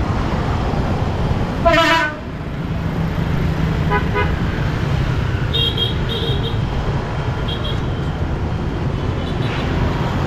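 A vehicle horn honks once, briefly, about two seconds in, over a steady low rumble of street traffic. A few faint, short high beeps follow later.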